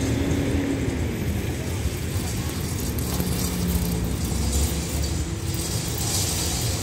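Steady rumble of road traffic, with one vehicle's engine note falling in pitch as it passes in the first second or so.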